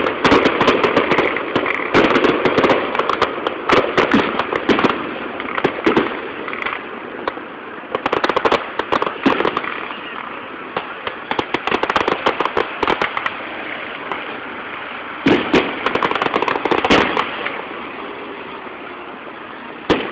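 Aerial fireworks bursting in rapid volleys of bangs and crackles, dying down near the end.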